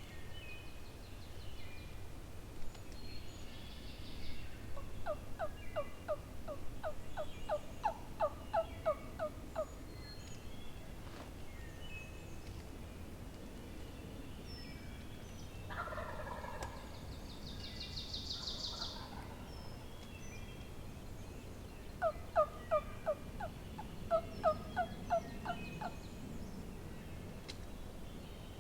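Wild turkey calling: two runs of evenly spaced yelps, about two a second, with a shorter turkey call about halfway through. Small birds chirp throughout.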